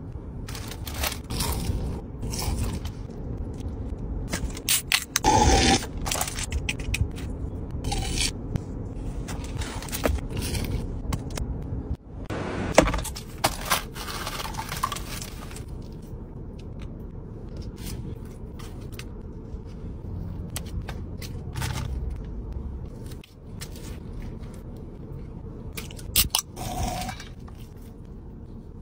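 Crinkling and rustling of foil wrap and a plastic bag as takeaway food is handled, with scattered clicks and a few louder spells of crackling.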